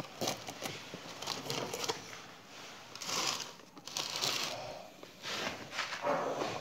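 Handling noise: plastic crinkling and rustling with small clicks and knocks as dead fish are moved about in a plastic tub, in uneven bursts.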